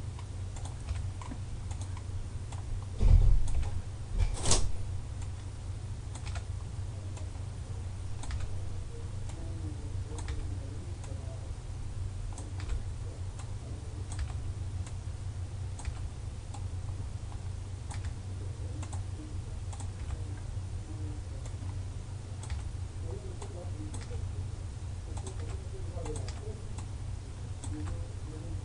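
Scattered clicks of a computer mouse and keyboard as on-screen elements are selected and deleted one by one, over a steady low hum. A heavier thump comes about three seconds in, with a sharp loud click just after.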